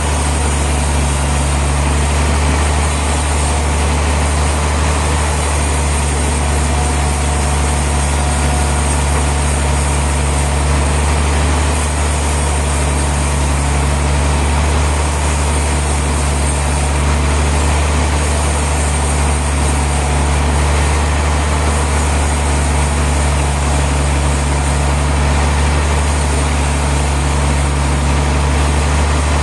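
Heavy sawmill machinery running steadily: a loud, even engine drone with a deep constant hum that does not change.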